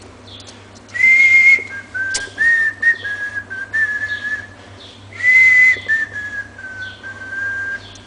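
A person whistling a tune: two similar phrases, each opening on a loud, higher held note and stepping down through shorter, lower notes.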